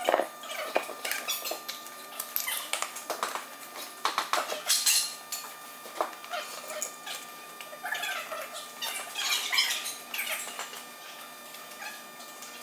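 Irregular knocks and clanks of heavy wooden cribbing blocks and tools being set and shifted on a concrete floor under a locomotive truck that hangs from a crane.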